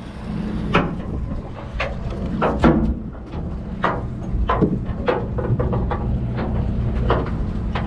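Steady low hum of a party boat's engine, with wind on the microphone. About a dozen short knocks and clicks come at irregular moments across it.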